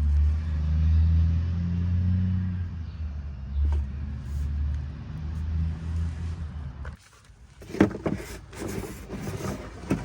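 Low, steady engine hum, like a vehicle idling, that cuts off abruptly about seven seconds in. A few sharp knocks and clattering follow.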